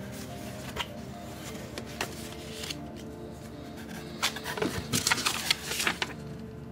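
Paper rustling and crackling as a folded leaflet and a printed card are handled in a cardboard box, with a dense flurry of rustles about four to six seconds in. Soft background music with held notes plays underneath.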